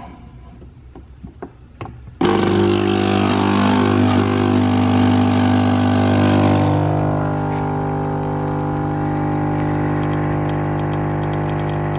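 Nespresso by De'Longhi Lattissima One capsule machine making a cappuccino: a few light clicks, then its pump starts suddenly about two seconds in and runs with a loud steady hum. A hiss over the hum fades out around the middle.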